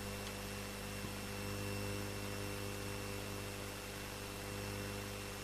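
Steady electrical mains hum with a faint hiss, from the studio's audio chain, with one faint click about a second in.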